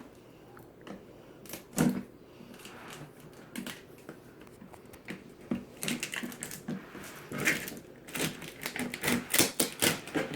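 Packing tape being peeled and pulled off a plastic shipping tote: irregular crackling clicks and knocks, sparse at first and coming thick and fast over the last few seconds.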